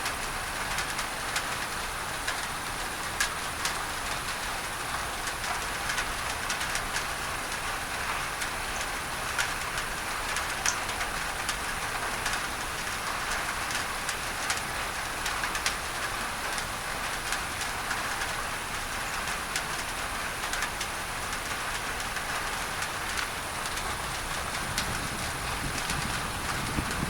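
Steady rain on a tin roof, individual drops ticking sharply over an even hiss of added pink masking noise. A low rumble builds near the end.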